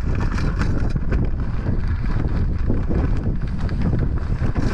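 Wind buffeting the camera microphone: a loud, rough, steady rumble.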